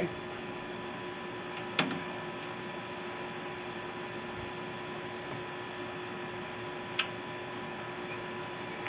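Steady electrical hum with a fixed tone, with two short sharp clicks, one about two seconds in and one about seven seconds in.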